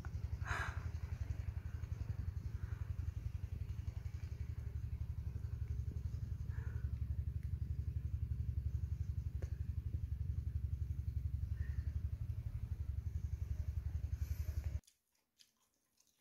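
A small engine running steadily, a low, fast, even chugging that cuts off abruptly near the end.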